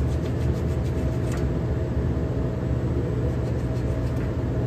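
Steady low hum of running HVAC equipment, with a faint steady whine over it and a few light clicks.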